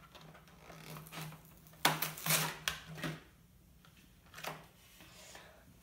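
Plastic blister and cardboard card of a die-cast toy car package crackling and clicking as it is pulled open by hand: a cluster of sharp crinkles about two seconds in and another one later.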